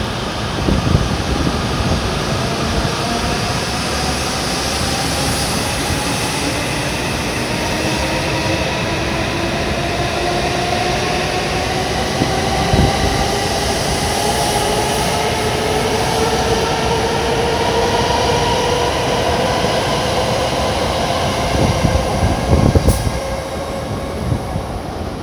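W7 series Shinkansen pulling away from the platform, its traction motors giving a rising whine as it gathers speed over the rush of the passing cars. The rush falls away near the end as the last car clears.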